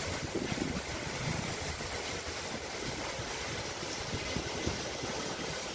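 Steady rush of water falling down the rockwork of a large ornamental fountain cascade.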